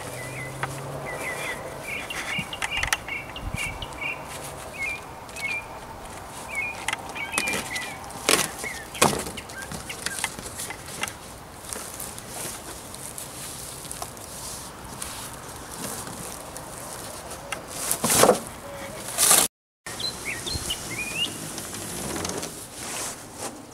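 Large cardboard box of a folding table being opened and handled: cardboard rustling and scraping with a few sharp knocks, the loudest about three quarters of the way through. Small birds chirp in the first several seconds and again near the end.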